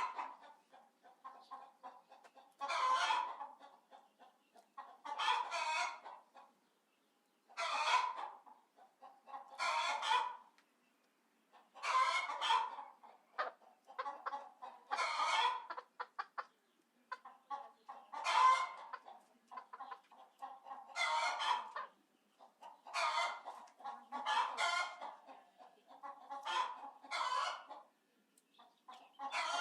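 Chicken calling and clucking: a loud call every two to three seconds, with quieter clucks in between.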